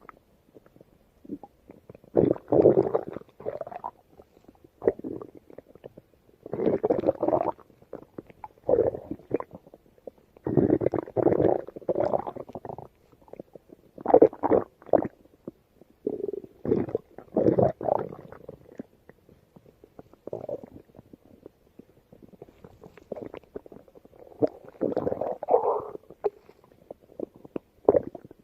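Stomach growling: a run of irregular gurgling rumbles, some short and some drawn out over a second or more, with brief quiet gaps between them.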